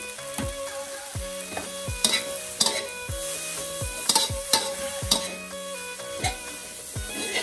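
Rice vermicelli sizzling in a hot steel wok as a metal spatula stirs and tosses it, scraping and knocking against the pan several times, loudest about two seconds in. Background music with a steady beat runs underneath.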